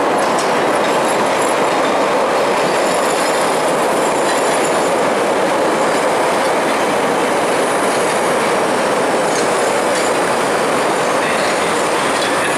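CTA 'L' 3200-series rapid-transit cars rolling past an elevated station platform: a loud, steady running noise of steel wheels on the rails, with a faint high wheel squeal over it.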